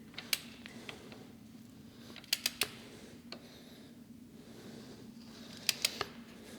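Ratchet wrench clicking in short runs as a motorcycle's oil drain bolt is turned tight: a single click near the start, then quick runs of three clicks about two seconds in and again near the end.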